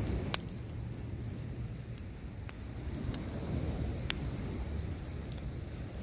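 Driftwood bonfire crackling, with a handful of sharp pops scattered through it, the loudest about a third of a second in, over a steady low rush of surf.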